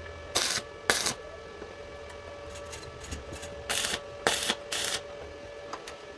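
Electric arc welder tack-welding steel tube: five short bursts of arc crackle, two close together near the start and three more a few seconds later, over a faint steady hum.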